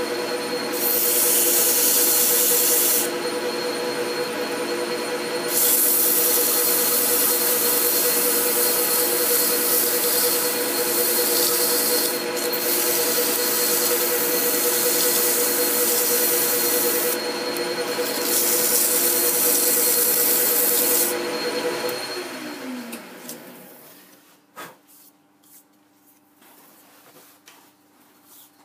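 A lathe running with a steady hum while something is held by hand against the spinning steel hub, giving a loud rubbing hiss in several stretches of a few seconds each, typical of hand-finishing with an abrasive. About 22 seconds in the lathe is switched off and winds down with a falling tone, leaving near quiet with a few small clicks.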